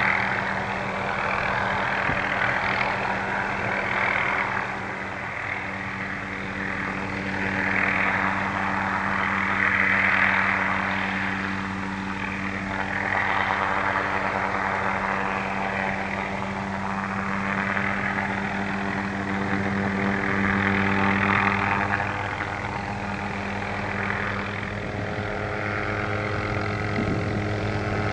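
MD 500-series light turbine helicopter hovering and moving slowly: a steady engine hum under rotor noise that swells and fades every couple of seconds, its pitch shifting near the end as the helicopter turns toward the listener.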